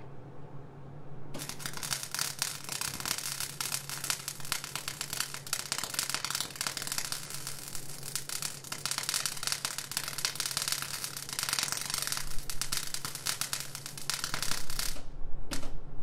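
Electric welding arc on steel crackling and sizzling steadily as a bead is laid. It starts about a second in, cuts off shortly before the end, then flares once more briefly. A low steady hum runs underneath.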